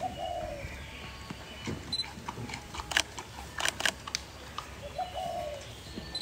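Giant panda biting into a fresh bamboo shoot: a few sharp cracks and crunches of the shoot splitting, loudest about three to four seconds in, with smaller snaps around them.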